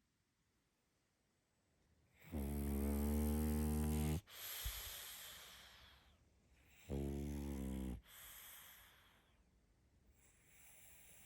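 Pug snoring in its sleep: a long snore about two seconds in and a shorter one near the middle, each followed by softer, fading breathing.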